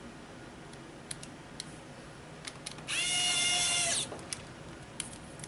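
Electric screwdriver running for about a second, driving a small screw back into a Chromebook's screen frame: a steady motor whine that starts and stops sharply. Light clicks and taps of parts being handled come before and after it.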